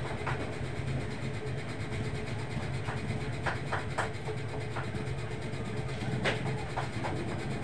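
Steady low rumble of roadside ambience, with a motorcycle passing at the start and a few short, sharp sounds scattered through, the clearest about four seconds and six seconds in.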